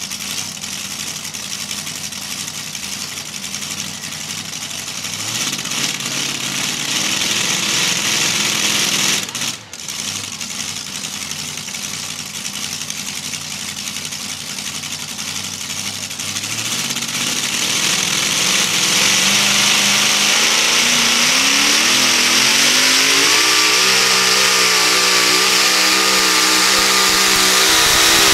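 Supercharged engine of a modified two-wheel-drive pulling truck idling and blipping at the hitch, then revving up with a steadily rising pitch and holding high revs as the truck pulls the sled down the track.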